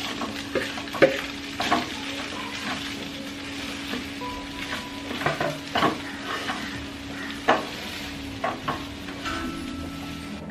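Poha (flattened rice) being stirred into hot oil and potatoes in a non-stick kadai: a soft sizzle, with a spoon scraping and knocking against the pan at irregular moments. A steady low hum runs underneath.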